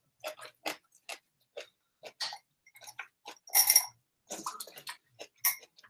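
Wet, crunchy crackling of salted shredded raw cabbage being chewed and pressed by hand: a run of short, irregular clicks, with louder crunches about three and a half and five and a half seconds in.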